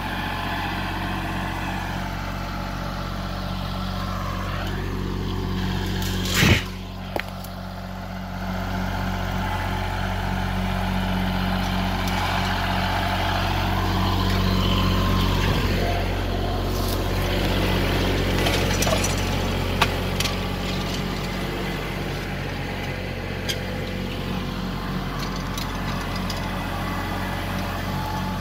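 Kubota L3901 compact tractor's three-cylinder diesel running steadily under load while working a landscape rake, with one loud sharp clank about six and a half seconds in and a few light knocks later on.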